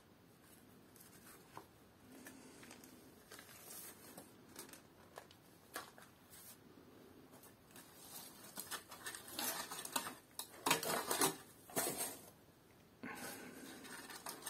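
Crinkled cardboard packing filler rustling and crackling as a hand digs through it in a cardboard box and slides a glider wing out. Faint scattered crackles at first, growing busier and louder past the middle, with a run of sharp rustles a little before the end.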